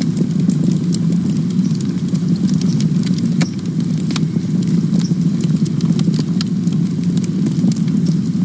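Campfire burning with a steady low roar and frequent sharp crackles and pops from the burning wood.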